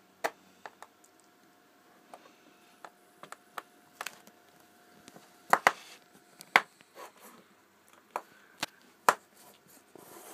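Small screwdriver working at a stubborn case screw of a mobile phone: irregular sharp clicks and ticks of the metal tip slipping and catching on the screw head and plastic housing, a few louder clicks in the second half.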